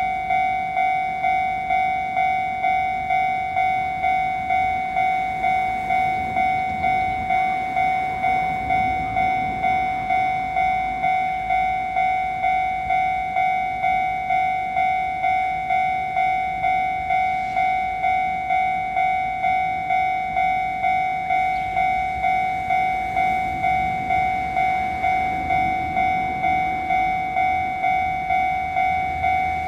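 Japanese level-crossing warning bell ringing, a steady electronic ding repeated a little under twice a second, over the low rumble of an approaching train.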